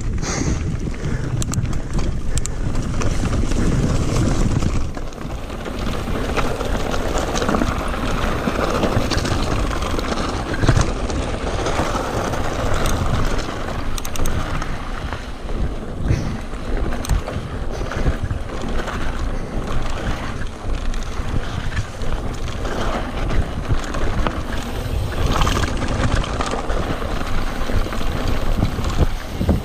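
Riding wind rushing over a handlebar-mounted camera's microphone as a mountain bike rolls down a stony dirt trail, with the tyres crunching over gravel and the bike rattling in many short knocks.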